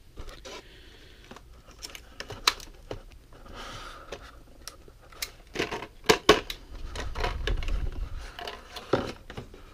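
Stiff clear plastic blister packaging being pried open and handled: irregular crackles and clicks of the plastic, with a brief rasp and a cluster of louder sharp snaps around the middle.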